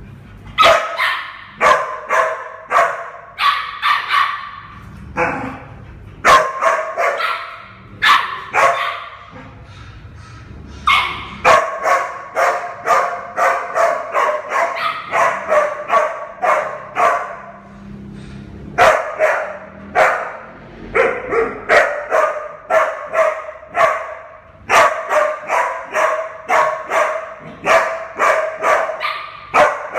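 A small puppy yapping again and again in quick runs of short, high-pitched barks, two or three a second, with a few brief pauses, during rough play with a larger dog in a bare tiled room.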